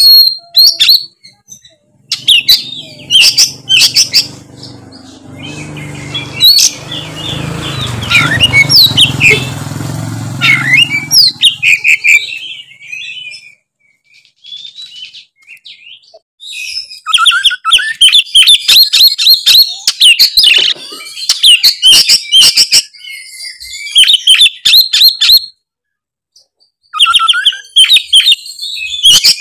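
Oriental magpie-robin singing full song in loud bursts of rapid, varied whistles and chattering notes. A few seconds of pause come about halfway through. A low hum sits under the first part.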